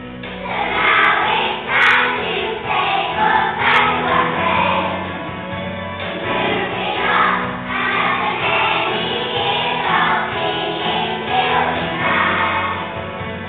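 A group of young children singing a song together in unison, over steady musical accompaniment.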